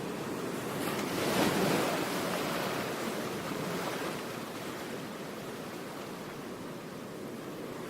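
Rushing noise of ocean surf. One wave swells about a second in and washes out over the next few seconds, above a steady hiss.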